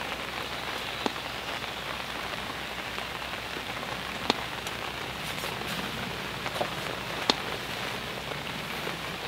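Steady rain falling on a lake surface and the bank, an even hiss with a few sharp ticks of drops landing close by.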